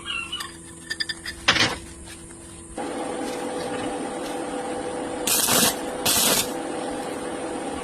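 Workshop machine noise: a few clicks and knocks, then a steady mechanical running noise from about three seconds in, with two short loud hissing bursts near the middle.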